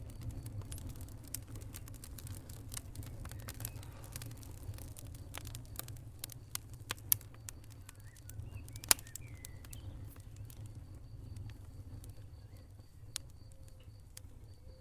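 Wood fire crackling in a fireplace: a steady low rumble under irregular sharp crackles, with two louder pops about seven and nine seconds in.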